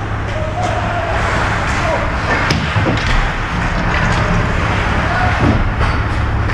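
Ice hockey rink noise during play: a steady low hum under crowd and player voices, with one sharp knock about two and a half seconds in.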